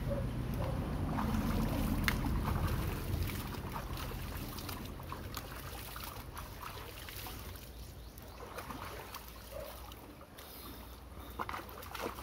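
Water splashing and sloshing as a man standing waist-deep in a pool scoops handfuls over his head and body, with a low rumble in the first three seconds.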